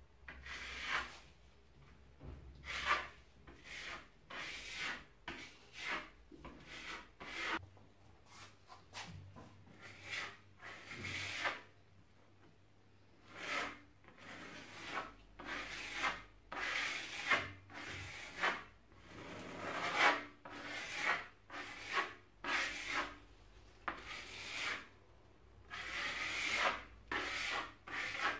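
Spatula spreading and scraping textured plaster paste across a wall, in short, repeated strokes of about one a second with a few brief pauses.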